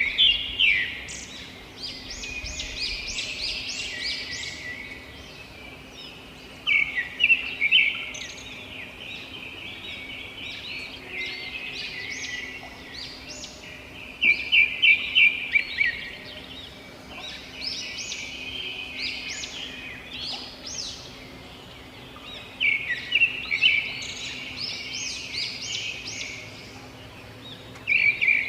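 Robins singing: loud bursts of quick repeated chirps come about every seven or eight seconds, with softer high twittering in between.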